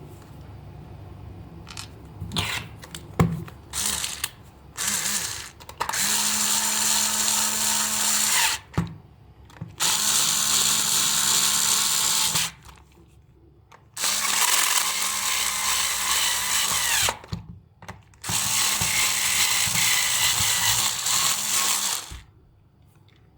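A small handheld power tool, drill-like, running in four bursts of a few seconds each with short pauses between, after a few brief blips.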